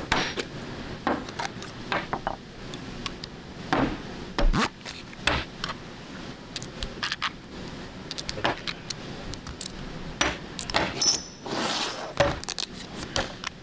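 Steel lathe tool holders, boring bars and tool parts being picked up and set down on a mat: an irregular run of sharp metallic clicks, clinks and light knocks, with a yellow plastic insert case clicking open and a short scrape near the end.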